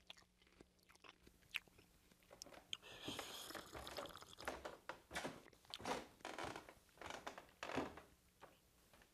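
Faint eating sounds: a person chewing and swallowing, with small clicks of a fork, and a drink from a glass about three seconds in.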